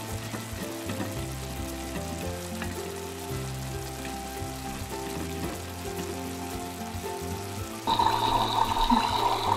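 Background music with held notes over a faint steady sizzling hiss. About eight seconds in, a louder, brighter electronic frying sizzle sets in: the toy stove's cooking sound effect.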